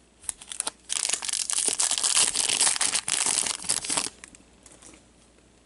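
Foil wrapper of a hockey card pack being torn open and crinkled by gloved hands, a few light clicks first and then loud dense crackling for about three seconds, stopping about four seconds in.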